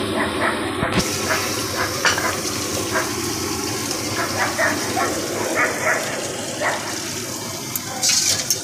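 Food deep-frying in a large iron kadai of hot oil: a steady sizzle with frequent crackles and pops. A brief louder rustle comes near the end.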